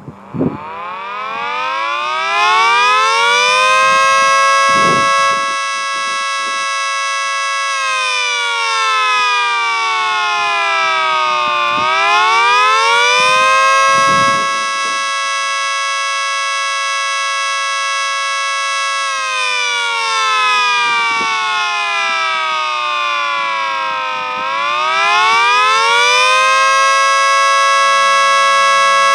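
Mini 3T22B three-tone siren winding up from silence to a chord of several tones. It then sounds the wavering Attack signal: it holds at full pitch for about four seconds, slides down over about four seconds and winds quickly back up, and does this twice.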